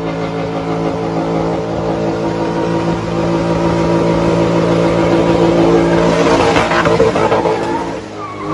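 Holden VP Commodore with a swapped LS1 V8 running at steady, held revs through a burnout. It gets louder and rougher about six to seven seconds in, then the revs drop briefly near the end.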